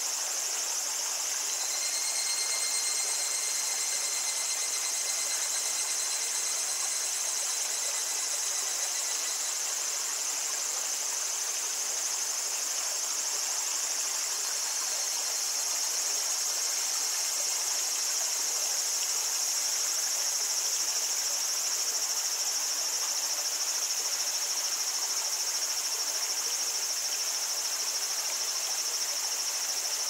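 Cicadas singing in a steady, unbroken high chorus over the soft, even trickle of a small forest stream.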